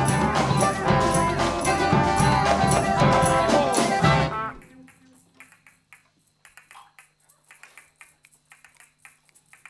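Large improvising ensemble of mixed instruments playing loudly all together, then stopping at once about four and a half seconds in, as on a hand-signed cut-off. Afterwards only faint clicks and rustles remain.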